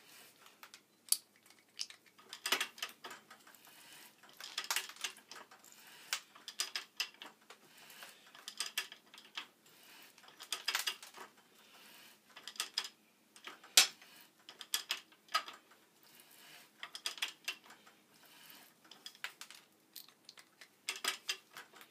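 Ridgid 00-R ratcheting hand pipe threader clicking as its handle is worked back and forth, the dies cutting threads into black iron pipe; a short burst of ratchet clicks comes about every two seconds.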